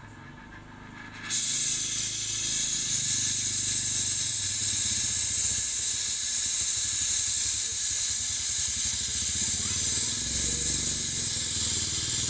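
Gas brazing torch flame hissing steadily, starting abruptly a little over a second in, as it heats the copper pipe joints on a new refrigerator compressor.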